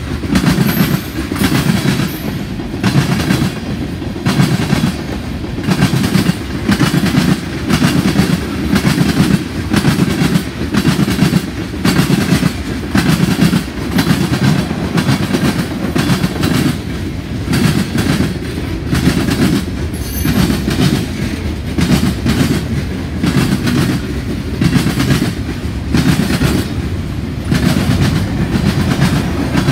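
Freight train's tank cars and hopper rolling past close by, steel wheels clacking over rail joints in a repeating rhythm with a steady low rumble.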